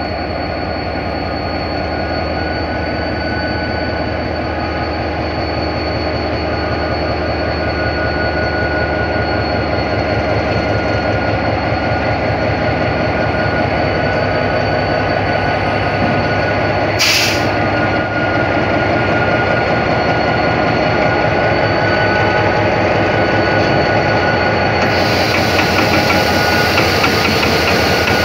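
EFVM DDM45 diesel-electric locomotive running as it rolls slowly past at close range, its engine throb growing a little louder, with a steady high whine over it. A single sharp knock comes about seventeen seconds in, and a hiss and rattle from the train joins in near the end.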